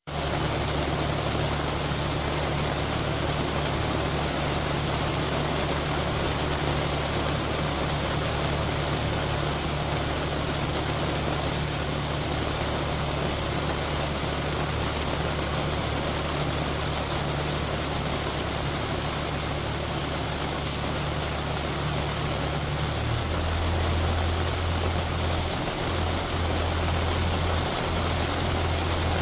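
Steady rain falling on a lake, an even hiss, with a low steady rumble underneath.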